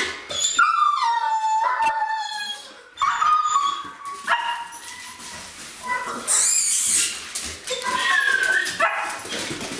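German shepherd whining and yipping in excitement: long drawn-out whines that fall in pitch, the longest lasting about two seconds near the start, with shorter yips and whines between.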